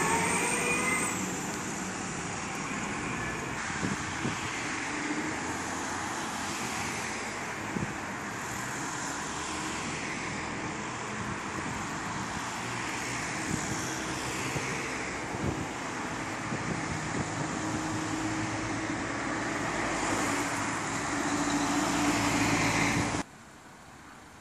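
Street traffic at a junction: cars and a lorry driving past, a steady mix of engine and tyre noise. It drops abruptly to a much lower level about a second before the end.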